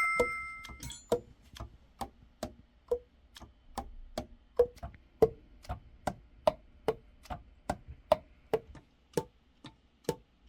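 Alto saxophone keys being pressed and released without blowing: a run of sharp clacks, about two to three a second and unevenly spaced, many with a short hollow pop as a pad seats on its tone hole.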